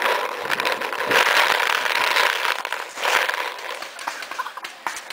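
Paintball player dashing to a bunker with a camera mounted on the marker: loud rustling and jostling for about three and a half seconds, full of sharp clicks and knocks, then a few scattered clicks.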